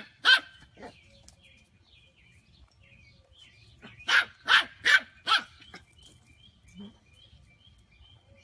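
A dog barking: one bark just after the start, then four barks in quick succession about four seconds in, with faint high squeaks in between.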